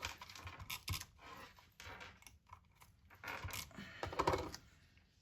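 Paper pieces being handled and pressed down on a tabletop: irregular rustling, scraping and small clicks, loudest about three to four seconds in.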